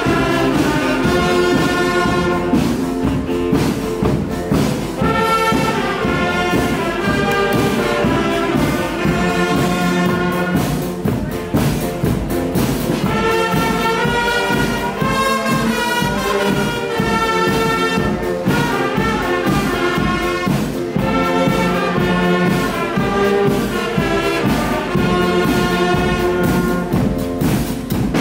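A school wind band playing a tune, with saxophones and clarinets carrying the melody over electric organ and a drum kit.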